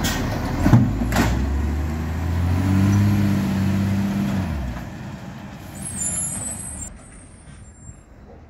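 Garbage truck's diesel engine running, with two short sharp sounds about a second in. The engine then rises in pitch as the truck pulls away, fading out about five seconds in.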